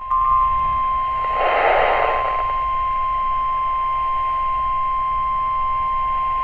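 NOAA Weather Radio's 1050 Hz warning alarm tone played through a weather radio's speaker: one loud, steady, unbroken tone that marks the start of a new warning broadcast. A short swell of noise rises under it about one and a half seconds in.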